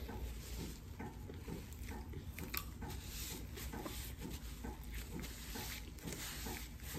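A person chewing and eating chicken, with irregular wet smacking mouth sounds.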